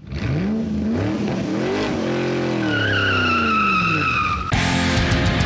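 Car engine revving up and down, with a tyre squeal joining about two and a half seconds in. About four and a half seconds in it cuts abruptly to rock music with electric guitar.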